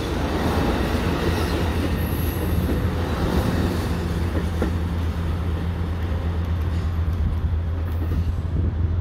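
Amtrak Pacific Surfliner bilevel passenger cars rolling past on the rails, a steady low hum under the noise of the wheels, as the train's rear cab car draws away.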